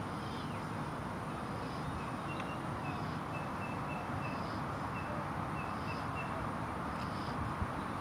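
Steady outdoor background noise with short, high bird chirps repeating in quick runs, and a single small click near the end.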